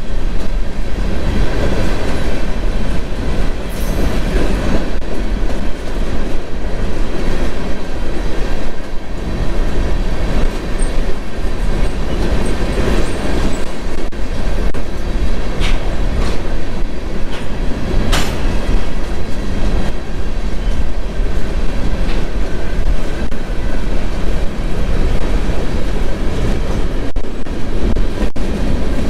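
Freight train of covered hopper cars rolling past, a steady loud rumble of steel wheels on rail with a few sharp clicks.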